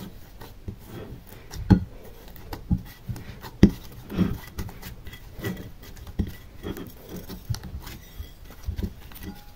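Slime being kneaded and squashed by hand against the bottom of a glass baking dish: irregular squishes and soft knocks on the glass, one or two a second, the loudest near two and near four seconds in.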